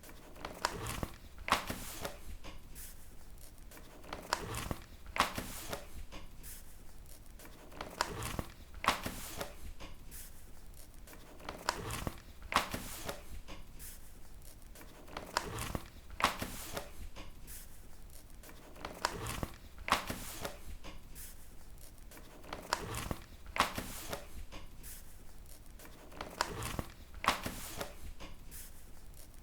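Paper book pages being turned one after another: a series of papery flips and swishes, each turn a quick cluster of crisp strokes, repeating every few seconds.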